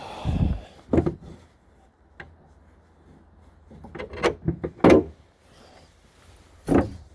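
Several separate clunks and knocks from a car's popped hood being handled and lifted, with a quick cluster of them about four to five seconds in.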